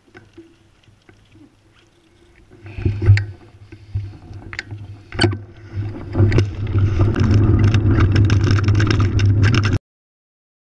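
Mountain bike rolling down a gravel trail, picked up by a camera mounted on the bike: a few light clicks at first, then a loud rumble of tyres on gravel and rattling with sharp knocks from about three seconds in, growing steady and loud from about six seconds until it cuts off suddenly near the end.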